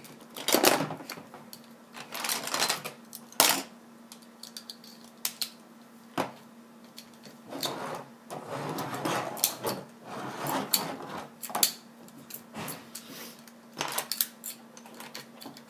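Plastic LEGO bricks clicking and clattering on a tabletop: irregular sharp clicks and short rattles as hands rummage through a loose pile and press pieces together.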